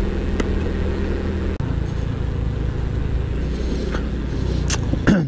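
Motor vehicle engine running steadily while on the move, a low rumble with a brief dip about a second and a half in.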